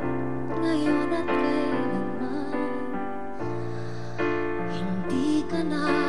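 Slow ballad sung live by a woman, long notes held with vibrato over sustained piano chords.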